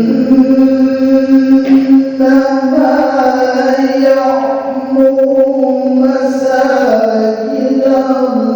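A male qori chanting verses of the Qur'an in melodic tilawah style, one voice holding long notes that step and bend in pitch.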